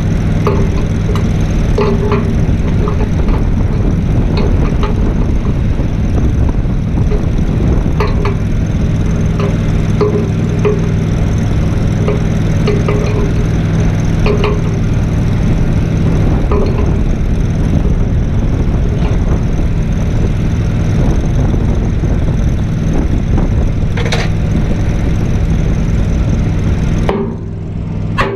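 An engine running steadily, with scattered sharp clicks and taps over it; the engine sound drops away a second or so before the end.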